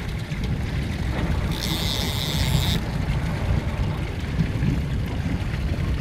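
Sportfishing boat's engine running low and steady, with wind on the microphone. About a second and a half in, a high hissing buzz starts suddenly, lasts just over a second and cuts off.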